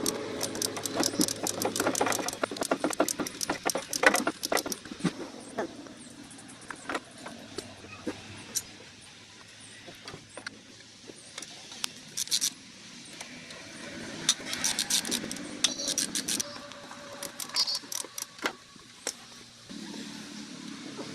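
Hand tools working on a car engine: repeated runs of rapid metallic clicks and clinks, several bursts of fast clicking with quieter gaps between.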